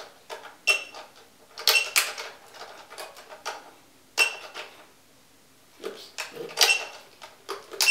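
Irregular clicks and knocks of small plastic parts being handled on a table, some with a brief high ring, about a dozen over several seconds.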